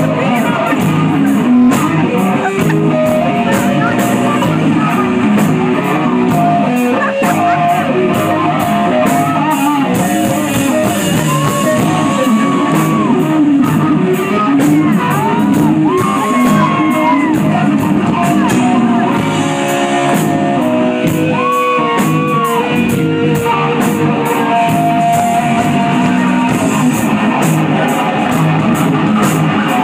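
Live hard rock band playing loud: electric guitar over drums, with cymbals ticking a steady beat and long held notes that bend in pitch several times in the middle.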